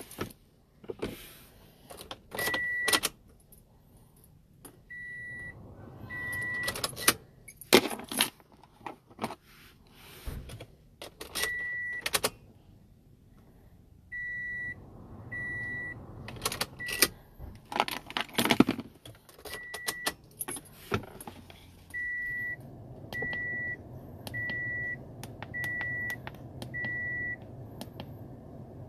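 Short high electronic beeps, about a dozen, the last five evenly spaced about a second apart, among clicks and the clatter of a car key and buttons being handled. A low steady hum sets in about halfway and grows near the end.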